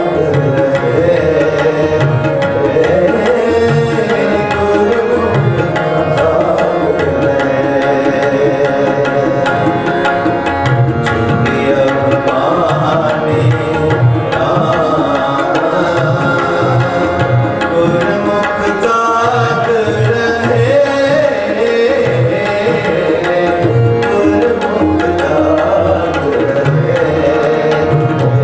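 Sikh kirtan music: harmoniums playing a sustained melody with tabla drumming a steady rhythm underneath.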